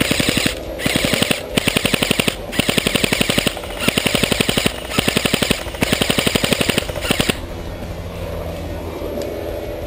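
Airsoft electric rifle firing on full auto in a string of about eight short bursts of rapid clicking shots, stopping about seven seconds in.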